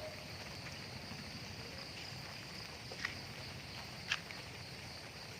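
Quiet outdoor background: a faint steady high-pitched hiss, with two short clicks about three and four seconds in.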